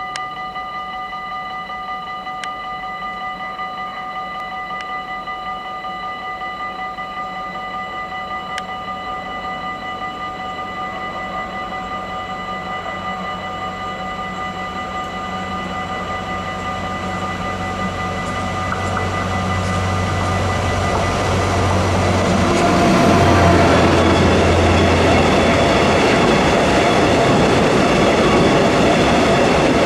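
DB Schenker class 6400 diesel-electric locomotive approaching on a lime freight train, its engine rumble growing louder and passing about two-thirds of the way in. It is followed by loaded hopper wagons rolling by close up with steady wheel and rail noise and some clatter. A steady high whine is heard until the train drowns it out.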